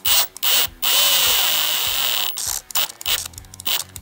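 Power drill driving an oversized helicoil tap into a stripped bolt hole in an engine case: two short blips, then one steady run of about a second and a half with a high whine, then a string of short bursts.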